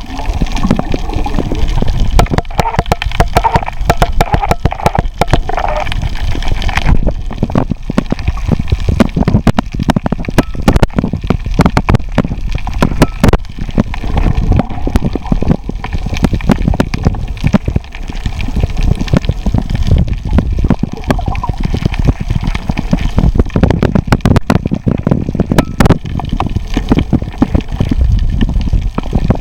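Underwater sound picked up by a camera held below the surface over a coral reef: a steady low rush of moving water, peppered with many sharp crackling clicks.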